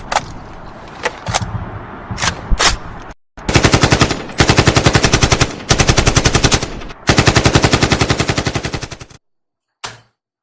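Machine-gun firing sound from a toy gun: a few single sharp cracks over a hiss, then three long bursts of rapid fire at about ten shots a second, and one short burst near the end.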